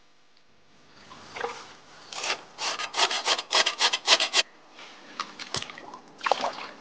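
Cleaver blade scraping the charred rind of a seared pork belly, a run of fast rasping strokes, about five a second, with a few slower strokes around it; this scraping takes the burnt layer off the skin after searing. A single sharp knock comes shortly after the fast run.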